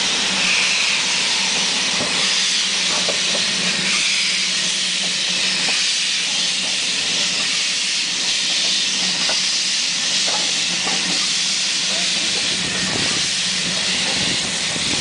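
Small saddle-tank steam locomotive moving slowly, with a loud, steady hiss of steam escaping from around its cylinders.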